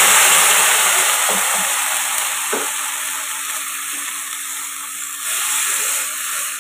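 Vegetables sizzling in hot oil in a nonstick kadai as they are stirred together with a freshly added ginger–radhuni paste: a loud hiss that slowly fades, then swells again about five seconds in, with a few soft knocks.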